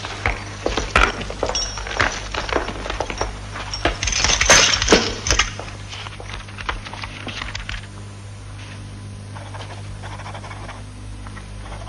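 Metal shackle chains clinking and jingling with footsteps as a chained prisoner walks in, a dense run of sharp clinks that is busiest about four to five seconds in and stops about six seconds in. After that only a steady low hum remains.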